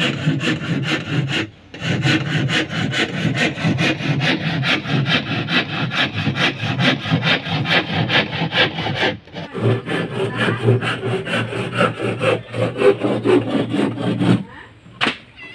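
Handsaw cutting through a plywood panel in quick, even strokes, about four a second, with a short break about a second and a half in. The sawing stops near the end.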